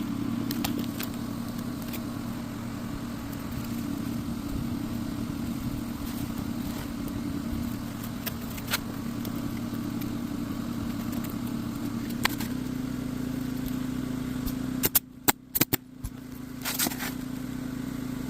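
A steady machine hum with occasional sharp clicks. About fifteen seconds in the hum drops away and a quick run of loud, sharp knocks follows.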